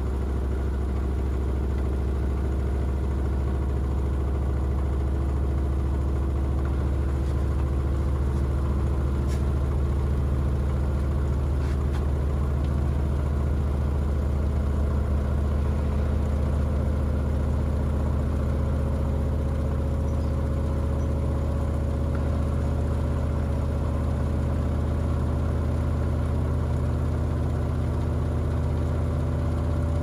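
LG DirectDrive front-loading washing machine running with a heavy carpet in the drum: a steady low hum, with a motor whine that slowly rises in pitch.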